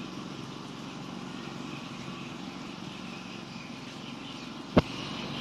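An engine running steadily with a low, even drone. A single sharp knock sounds near the end.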